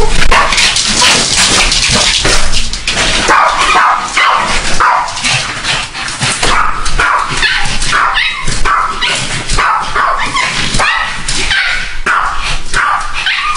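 Two small dogs barking, yipping and whining excitedly without a break, jumping at the door: the frantic greeting of dogs as a family member they have missed comes home.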